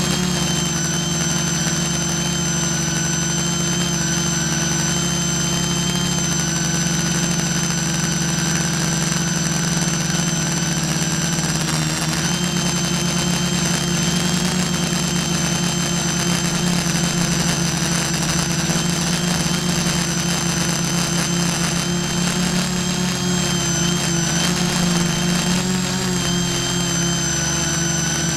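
Multirotor drone's electric motors and propellers running steadily in flight, heard close up from its own onboard camera: a constant buzz with a thin high motor whine above it, its pitch shifting slightly now and then as the motors adjust speed.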